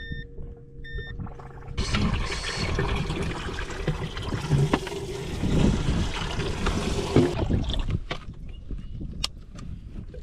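Two short electronic beeps, then water rushing and splashing, which starts and stops suddenly and lasts about five seconds.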